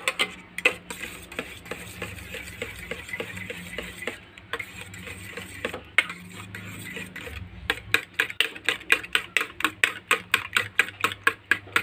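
Metal spoon beating egg mixture in a stainless steel bowl, clinking against the bowl's side. The strokes are irregular at first, then settle about eight seconds in into a quick, even beat of about four strikes a second.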